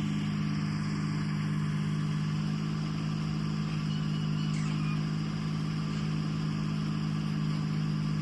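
Kubota tractor's diesel engine running at a steady speed, an even hum that does not change in pitch.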